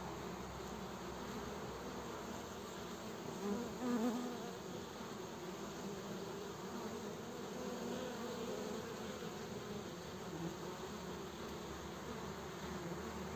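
Honeybees humming steadily as they fly in and out at a hive entrance, with one bee passing close and briefly louder about four seconds in.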